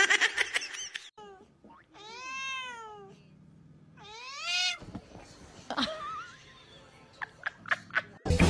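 Domestic cats meowing: a few short cries in the first second or so, a long arching meow about two seconds in, and a rising meow about four seconds in, followed by scattered light clicks.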